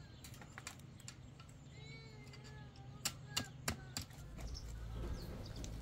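Wire being twisted and fastened around a wooden fence post for chicken-wire fencing: four sharp metallic clicks a little past the middle, about a third of a second apart. Faint bird calls come earlier, and a low rumble builds near the end.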